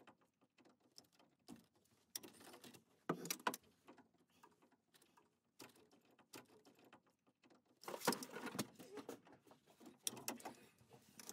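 Faint, scattered clicks, clacks and rustles of a metal PEX crimping tool and work gloves being handled on a pipe fitting, busiest about two seconds in and again about eight seconds in.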